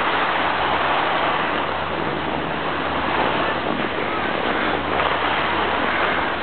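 Skis sliding over groomed snow, a steady rushing hiss, with wind on the microphone.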